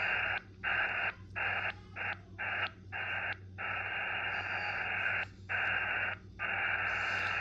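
Xiegu X6100 HF transceiver's speaker hissing with receiver noise in lower sideband, RF gain at 100% and no antenna connected, so the noise comes from the radio itself. The hiss cuts out for a moment again and again, with small clicks, as the tuning knob is stepped down the band, then runs steadier for longer stretches.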